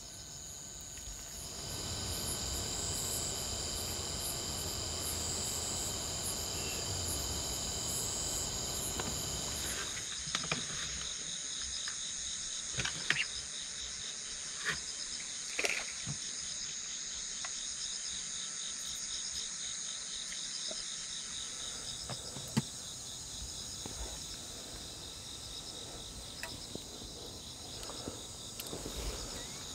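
Crickets and other night insects chirring steadily, with a few brief light clicks or knocks scattered through.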